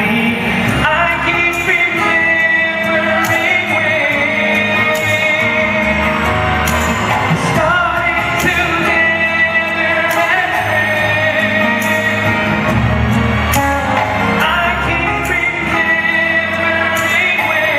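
Male vocal group singing a pop song live, accompanied by acoustic guitar.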